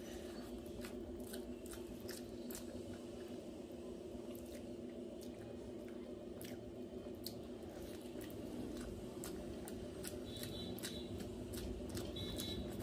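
Close-miked eating: chewing and wet mouth clicks from mouthfuls of rice and chicken curry, with squishes as the rice is mixed into the curry by hand. A steady low hum runs underneath.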